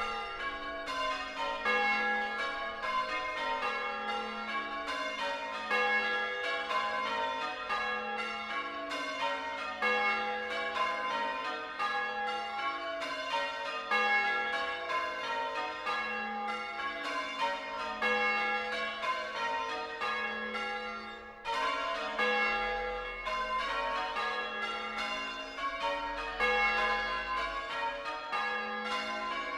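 A ring of six church bells in A-flat, tenor about 8 cwt, being rung in changes: a steady, unbroken stream of strikes, the bells sounding one after another in rows.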